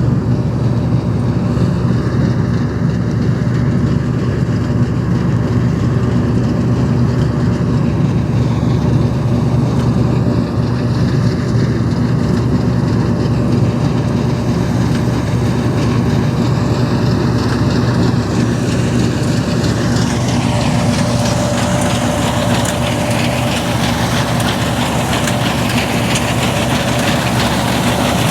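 Combine harvester almost 40 years old running steadily while combining spring barley, a deep even drone. About twenty seconds in, a higher hiss rises and a faint steady whine comes in over it.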